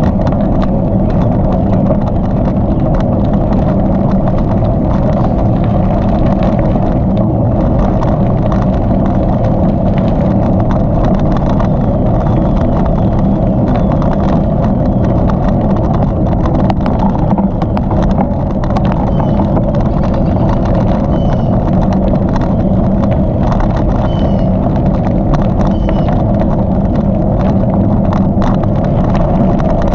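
Wind rushing over the microphone of a camera on a moving bicycle, with the steady rumble of tyres rolling on hardpack gravel.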